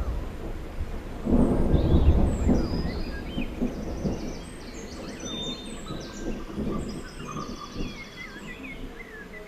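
Thunder: a rumble that swells about a second in, is loudest for a second or two and then rolls away over several seconds.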